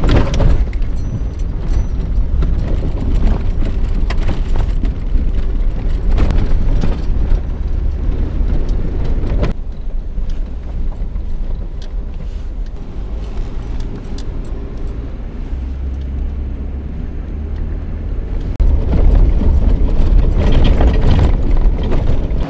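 Jeep Wrangler JKU driving on a rough forest road: a steady low rumble of engine and tyres with scattered knocks and rattles over bumps, growing louder near the end.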